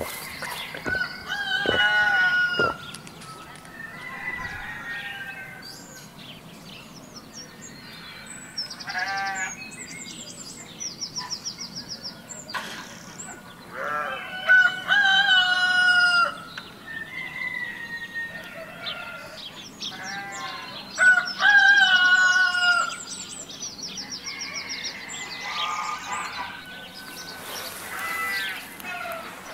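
A rooster crowing about five times, each crow a second or two long, with small birds chirping in quick high trills between the crows.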